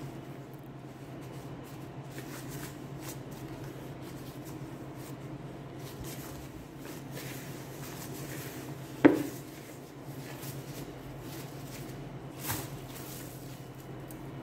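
Dough being kneaded and pressed by gloved hands in a plastic bowl: soft handling noises over a steady low hum, with a sharp knock about nine seconds in and a softer one near the end.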